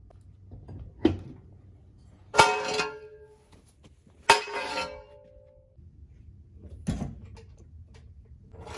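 Steel jack stands and a floor jack being knocked free and pulled from under a lifted Jeep: two ringing metal clanks about two seconds apart, with duller knocks before and after them. A rough rolling noise from the floor jack being dragged out starts near the end.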